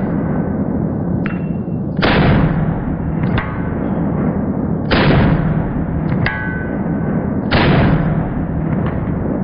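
Three pistol shots about three seconds apart, with short ringing metallic pings between them from rounds striking a steel plate target.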